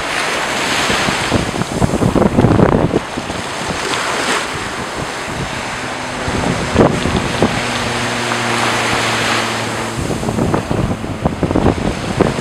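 Ocean surf washing up a sandy beach, with wind buffeting the microphone in gusts. A faint steady hum sounds for a few seconds in the middle.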